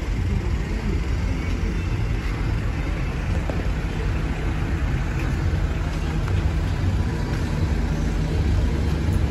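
A vehicle engine idling steadily, a continuous low rumble.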